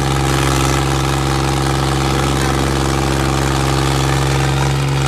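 Diesel tractor engines idling steadily at one even pitch, with no revving.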